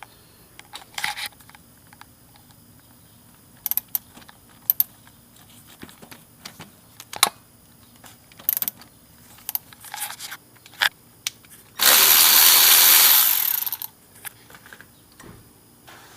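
Scattered clicks and clanks of hand tools on metal, then a power tool runs for about two seconds near the end, loosening a bolt on the front suspension.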